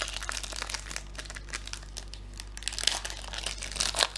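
Plastic wrapper of a hockey trading-card pack crinkling and tearing as the pack is opened by hand. The crackling is irregular and gets busier about three seconds in and again near the end.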